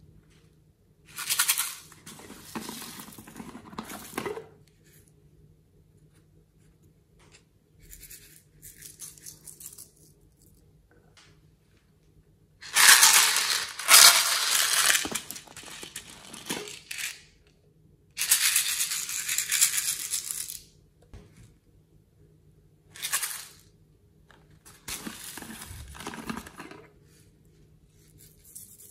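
Plastic toy bottles being handled and emptied, and small plastic beads poured into a glass bowl of slime: a series of separate rustling, crackling bursts of one to four seconds each, with quiet gaps between.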